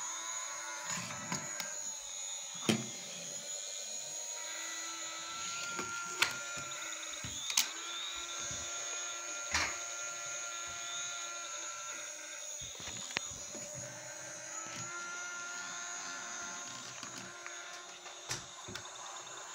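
Battery-operated toy police helicopter and toy car running: a small electric motor whirring under electronic toy sound effects, with steady tones and short rising chirps that repeat. Several sharp knocks stand out above it, the loudest a few seconds in.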